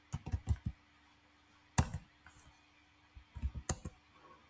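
Computer keyboard keys being typed in short bursts of clicks, with a few louder single keystrokes.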